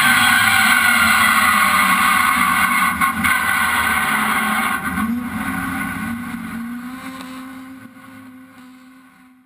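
Rallycross car's engine heard from the onboard camera: at first the revs fall as the car comes off the throttle, then it runs at lower revs with a few small rises. The sound fades away toward the end.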